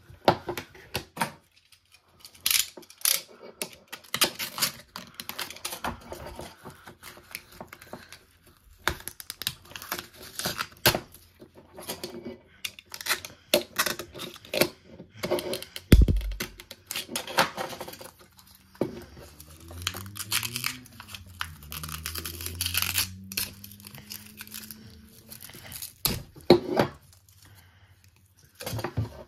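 Paper cone and surround of a small oval speaker being cut with a utility knife and torn out of its metal frame: irregular scraping, cracking and tearing, with one loud knock about halfway through.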